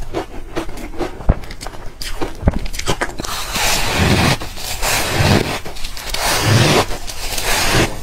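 Close-miked biting and chewing of a chunk of frosty ice coated in green powder: sharp crackling clicks at first, then repeated crunching bites from about four seconds in.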